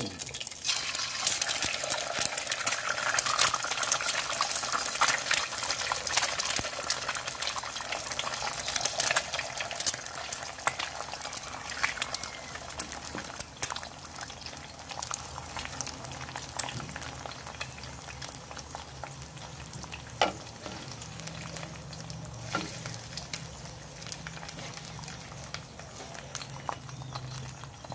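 An egg frying in hot oil in an aluminium wok: dense sizzling and popping right after it goes in, easing over time to a lighter crackle. Two sharp clicks about two-thirds of the way through.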